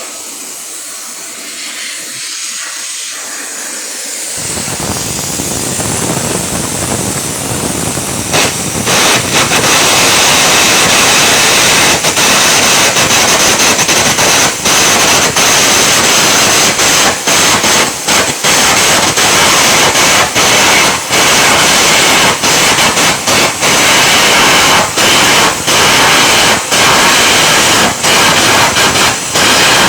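Electric arc welding: the arc's crackling hiss, building over the first several seconds and then running loud and steady from about eight seconds in, with many brief dropouts.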